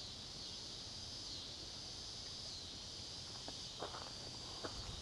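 Steady, high-pitched chorus of insects, with a few faint footsteps on gravel from about three and a half seconds in.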